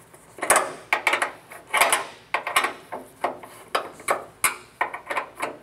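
Ratchet wrench snugging down the bolts of a billet truck hood hinge: a run of short sharp clicking strokes, a few a second.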